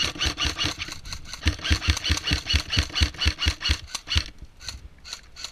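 Airsoft gun firing a rapid, even string of shots for about four seconds, with a few more spaced shots near the end.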